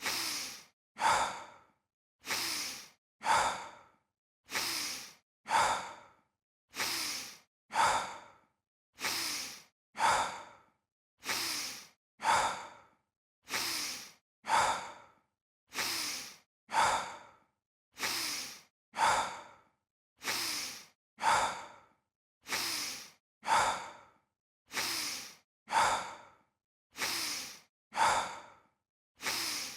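Looped stock sound effect of a person breathing in a sigh pattern, a longer breath followed by a shorter, sharper one. The pair repeats evenly about every two seconds with dead silence between repeats.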